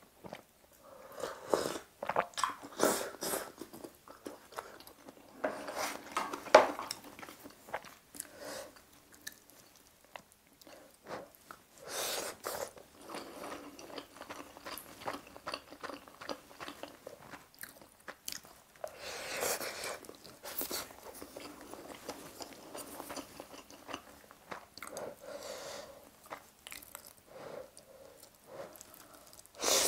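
Close-miked eating: broth sipped from a ladle, then chewing and crunching of army stew and rice in irregular bursts.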